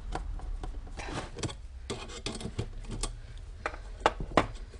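Gloved hands handling a disassembled car alternator's metal housing and parts on a wooden workbench: rubbing and scraping, then a series of sharp clicks and knocks, the two loudest near the end.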